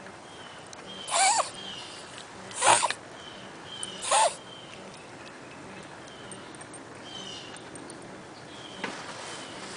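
A small pet wheezing: three short, rasping snorts about a second and a half apart, each with a squeaky catch in the breath.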